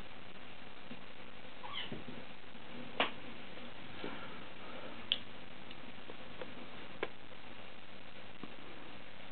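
Two kittens play-wrestling: one brief high mew a little under two seconds in, and a few sharp taps and clicks from their scuffling, over a faint steady hiss.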